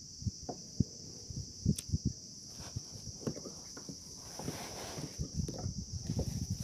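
Irregular dull knocks and bumps of gear and body shifting against a plastic sit-on-top kayak, with a stretch of rustling about four seconds in. Under them runs a steady high-pitched hiss.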